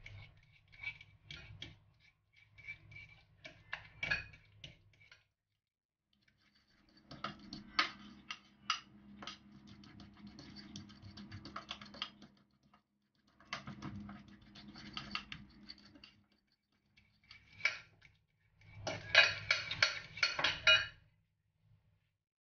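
Metal fork scraping and tapping against a glass bowl while mashing softened butter and egg yolk together. It comes in several bouts with short pauses, and the fastest, loudest run of taps comes near the end before it stops.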